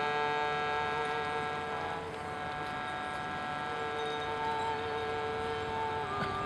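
Piano accordion holding sustained drone chords, with a long held melody note above them. The chord changes about two seconds in, and the melody note drops out briefly before returning.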